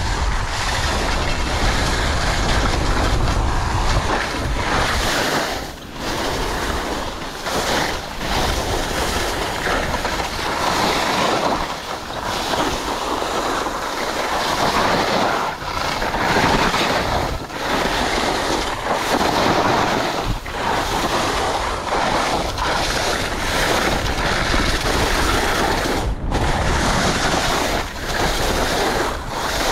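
Skis carving and scraping down a slope of soft late-season snow, a continuous rushing hiss that dips briefly every second or two between turns, with wind rushing over the microphone.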